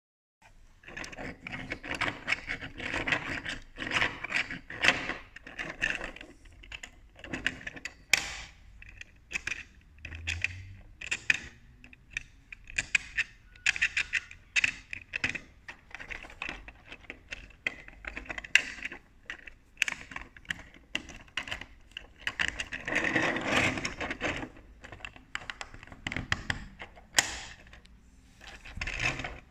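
Rapid plastic clicking and clattering as the moving parts of a one-piece 3D-printed toy toaster are worked by hand, with flaps and parts snapping open and shut. The clicks come in dense runs, about a second in and again near the middle of the last third, between scattered single clicks.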